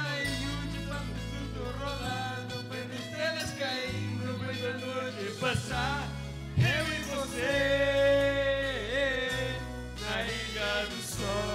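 Two men singing a duet into handheld microphones over amplified backing music with a steady bass line; a long held note comes a little past the middle.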